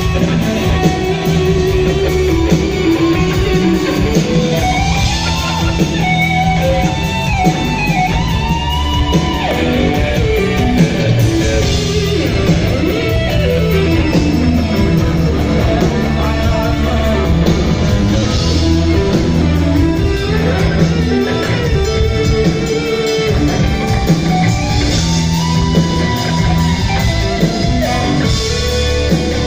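Live rock band heard through the mixing-desk feed: an electric guitar plays a melodic lead with gliding, bent notes over a steady low bass.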